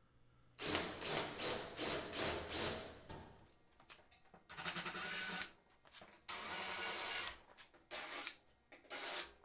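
DeWalt 20V Max cordless drill drilling out the rivets that hold aluminium trim on a horse trailer. It goes in a quick run of short trigger bursts, then in longer runs of about a second each.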